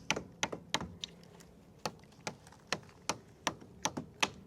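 A hammer tapping a garden-border anchoring stake into hard ground: a string of sharp, light knocks, about two to three a second, unevenly spaced.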